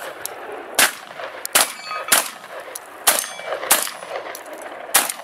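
Shotgun firing six shots at irregular intervals, about half a second to a second apart. After one of the early shots a struck steel target gives a short metallic ring.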